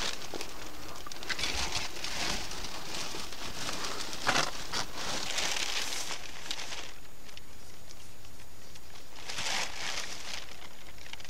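Rustling and crinkling of plastic and fishing gear being handled, in irregular bursts. It dies down after about seven seconds, with one more burst near ten seconds.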